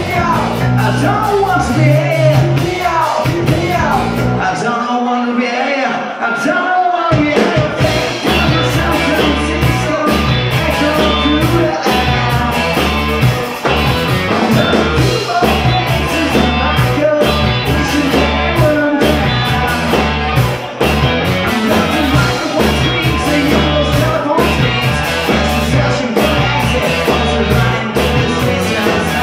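Live rock band playing: electric guitars, bass and drums, with singing. About seven seconds in, the full band comes in with steady, driving drumming.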